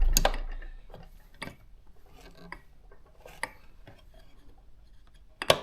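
Cover of a Consul 1511 typewriter being fitted back on: a knock at the start, then scattered light clicks, and a sharper click near the end as its spring-loaded hooks are worked into place.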